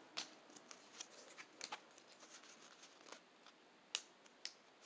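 Near silence with faint, scattered clicks and taps of Pokémon trading cards being handled, the loudest about four seconds in.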